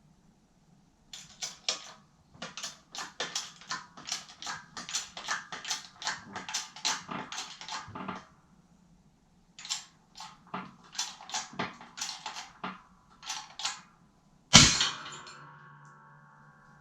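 Two runs of rapid sharp knocks, about three or four a second, then one loud impact near the end that rings out for about two seconds.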